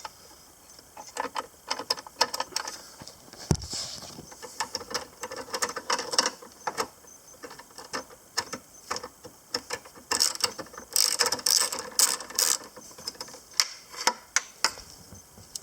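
Quarter-inch drive ratchet clicking in runs as it turns a 10 mm deep socket on a long extension and swivel, backing off a nut. A single dull thump about three and a half seconds in.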